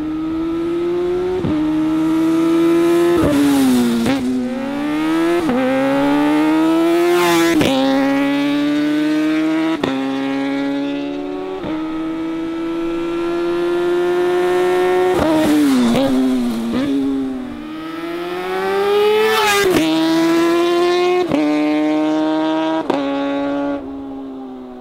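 Kawasaki ZX-4RR's 399 cc inline-four running through an Akrapovic full stainless exhaust, accelerating hard through the gears: the pitch climbs in each gear and drops sharply at each quick upshift. Twice the pitch sweeps steeply down as the bike passes.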